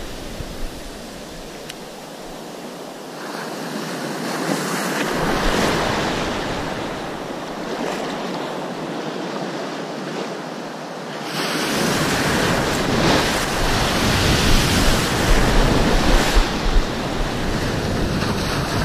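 Sea surf washing and breaking around a wading angler's legs, with wind buffeting the microphone. The wash swells a few seconds in, eases, then turns suddenly louder and gustier a little past halfway.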